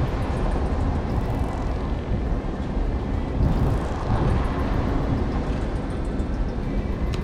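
Outdoor city street noise: a steady low rumble with no clear events.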